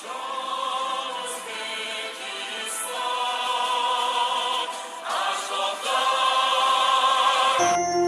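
Outro music of choral or operatic singing with wavering held notes. It switches abruptly to a different piece of music about a second before the end.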